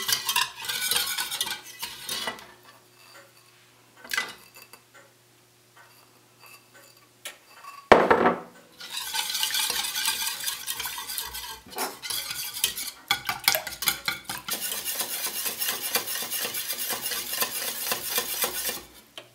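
Wire balloon whisk beating eggs into lemon juice and sugar in a stainless steel saucepan, its wires rapidly clinking and scraping against the pan. The whisking stops after about two seconds, with a knock about four seconds in and a loud knock about eight seconds in, then starts again and keeps on steadily.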